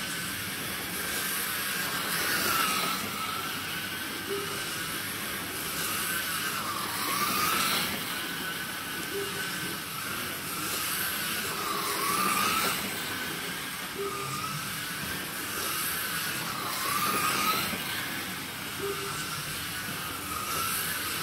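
Slot car's small electric motor whining as it laps a banked oval track, the pitch dipping and climbing back about every two seconds, over a steady hiss.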